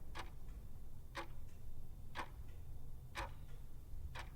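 Timepiece ticking at one tick a second, five sharp even ticks over a steady low hum.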